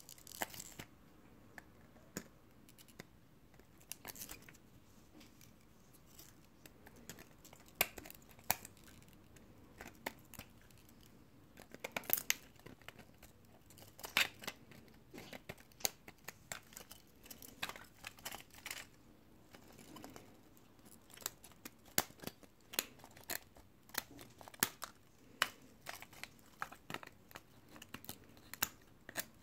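Rebel II HD 3D printer printing at 70 mm/s: irregular sharp ticks and clicks, some louder than others, over a faint steady hum.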